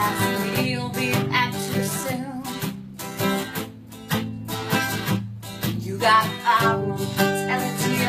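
Woman singing to her own strummed steel-string acoustic guitar, with a short break in the vocal in the middle while the guitar carries on.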